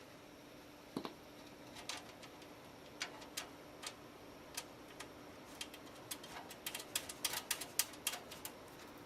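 Irregular sharp clicks and taps of computer hardware being handled while a power supply is fitted into a PC case, coming thicker and faster near the end, over a faint steady hum.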